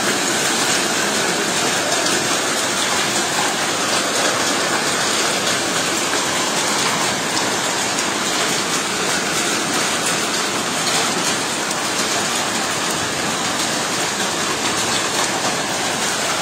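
Heavy rain mixed with hail pelting wet paving stones: a steady, dense hiss with fine ticks of hailstones striking.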